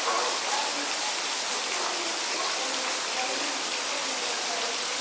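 Small pond fountain jetting water up and splashing back into the pool: a steady splashing hiss.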